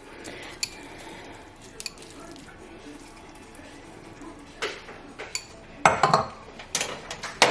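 Utensil clinks and knocks against a Dutch oven and dish as shredded chicken is added to the stew, with a few sharper clatters in the second half.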